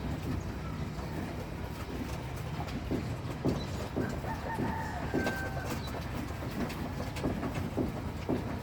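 Outdoor ambience: a steady low rumble with scattered knocks, and a short bird call about four to five seconds in.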